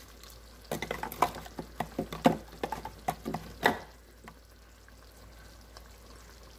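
An irregular run of light clicks and knocks, kitchen items being handled, lasting about three seconds; the loudest knocks come near the end of the run, and it is quiet after.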